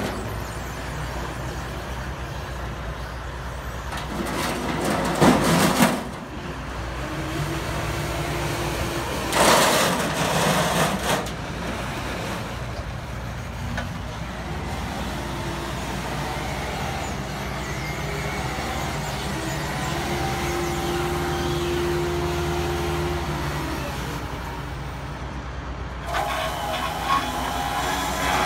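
Large forklift's engine running and revving, with a steady whine at times and two loud rushing bursts early on, a few seconds apart. Near the end comes metallic scraping and clatter as the forks work among galvanized sheet-steel pieces on a flatbed trailer deck.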